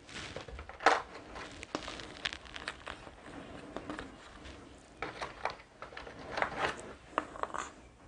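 Thick board-game tokens being handled and set down: scattered light clicks and rustling, with a sharper click about a second in and a busier run of clicks in the last three seconds.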